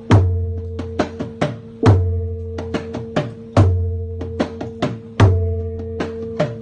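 Traditional Thai drums beaten in a repeating rhythm: a deep booming stroke about every second and three-quarters, with several lighter, sharper strikes between, over a steady ringing tone.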